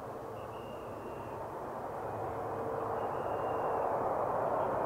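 CRJ-702ER regional jet on approach, the rush of its GE CF34-8C turbofan engines growing steadily louder as it comes nearer.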